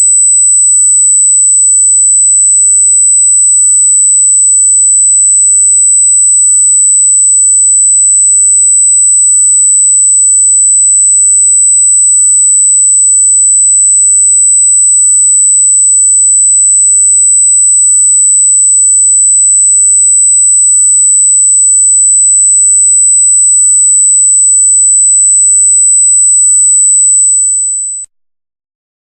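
A loud electronic sine tone, one very high pitch held dead steady with no change. It dips slightly and cuts off about a second before the end, then starts again right at the end.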